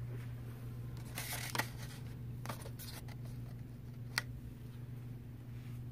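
A card clearance tag being handled and flipped against a plastic shelf price strip: a few short rustles and light clicks, one sharper click about four seconds in, over a steady low hum.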